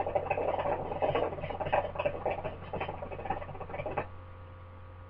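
Hookah water bubbling in quick, irregular gurgles as smoke is drawn through the hose in one long pull. It stops abruptly about four seconds in.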